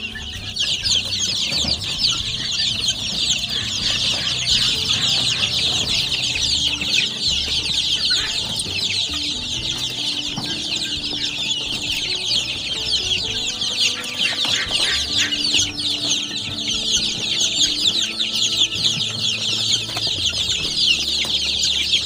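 A brood of 17-day-old desi chicken chicks peeping constantly, many short high chirps overlapping into a dense chorus. They are hungry chicks calling for feed and water, their feeders empty.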